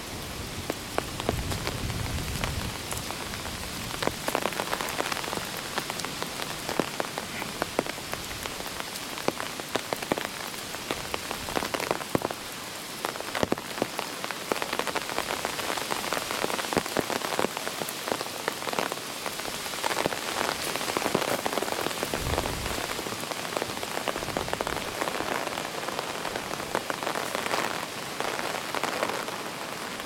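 Typhoon rain falling steadily, a dense hiss full of close drops ticking. A low rumble of wind gusting on the microphone comes in near the start and again about three quarters of the way through.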